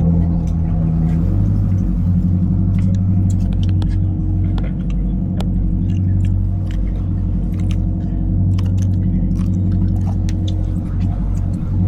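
Boat engine running steadily at a constant pitch, with scattered light clicks and knocks over it.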